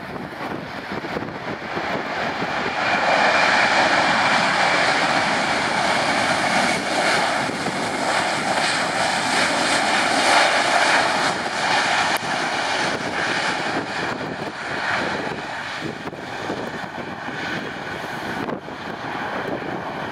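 Jet engines of an Airbus A320-214 during its landing roll on the runway: a steady rushing engine noise that grows over the first few seconds, is loudest as the airliner passes, and then slowly fades as it rolls away.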